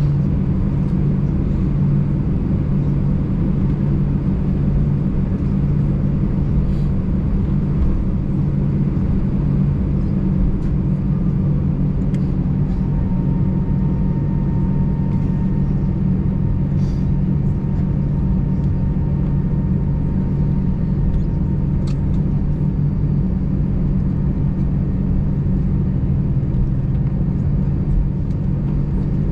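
Airbus A320 cabin noise while taxiing after landing, with the jet engines at idle: a steady low drone. A faint thin whine comes in for several seconds in the middle, and a few faint clicks sound over it.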